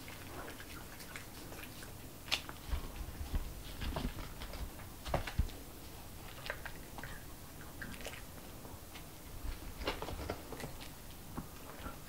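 A Pomeranian biting and chewing food fed by hand, with clusters of sharp clicks about two to five seconds in and again around ten seconds.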